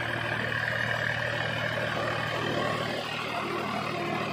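Farm tractor's diesel engine running steadily while the tractor is driven.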